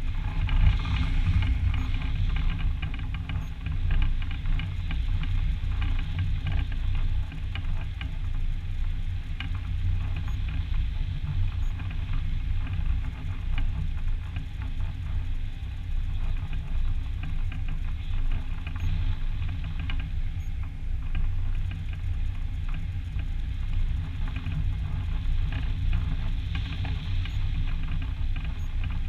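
Wind rushing over the microphone of a camera mounted on a hang glider's wing in flight: a steady low rumble with a fine, rapid crackle over it.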